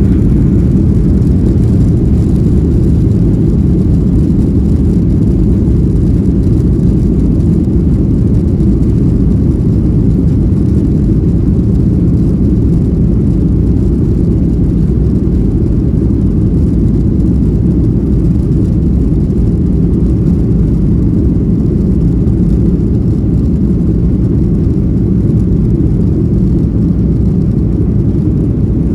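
Steady, loud low rumble of an airliner's engines and airflow heard from inside the passenger cabin.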